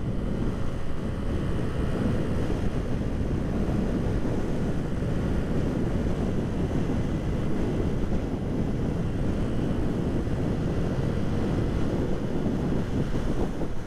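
Wind buffeting the microphone on a moving 1985 Honda Elite 150 Deluxe scooter, with its engine and road noise running underneath at a steady cruise. The rush is heaviest in the low range and holds even throughout.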